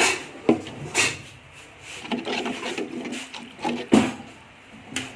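Kitchen clatter: a handful of sharp knocks and bumps of cookware being handled, spaced irregularly with softer rattling between.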